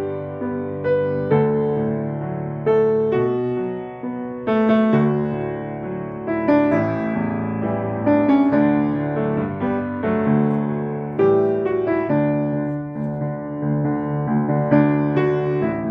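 Slow instrumental piano music: single notes struck one after another, each dying away, over low held chords.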